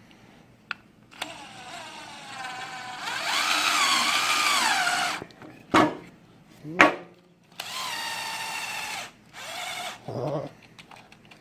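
Power drill boring a large hole through a Kydex sheath, run in several bursts: a long run whose pitch wavers under load, two brief spin-ups, then two shorter steady runs near the end.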